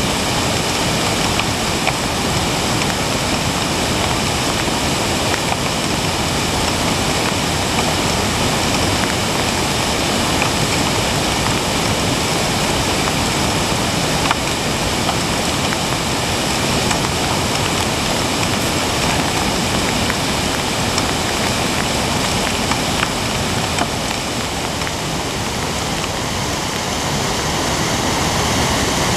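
A creek in flood, its muddy whitewater rushing steadily over rocks and debris.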